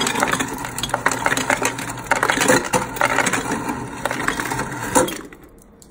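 Refrigerator door ice dispenser running, its motor humming as crushed ice rattles down into a stainless steel Hydro Flask bottle. It stops about five seconds in.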